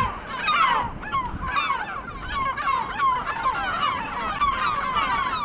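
A colony of gulls calling all at once: a dense, unbroken chorus of many short, falling cries overlapping.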